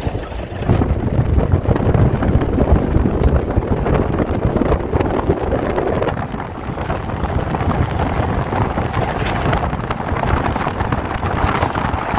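Wind buffeting the microphone of a moving vehicle, a rumbling rush with vehicle noise underneath.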